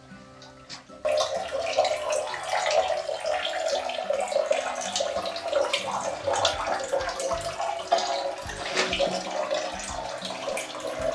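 Spring water pouring from a pipe into a concrete basin, a steady splashing run of water heard close up inside a small concrete spring house. It sets in abruptly about a second in.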